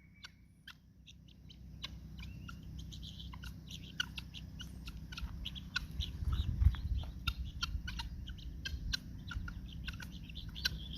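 A flock of turkeys clucking in many short, quick calls over a steady low rumble.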